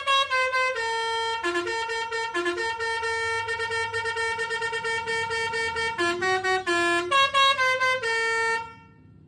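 Basuri telolet multi-tone air horn playing a melody: quick changing notes, a long held stretch in the middle, then more quick notes before it cuts off near the end.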